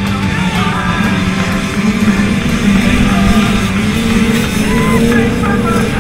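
A pack of small youth motocross bikes revving together and pulling away from the start, with rock music playing over them.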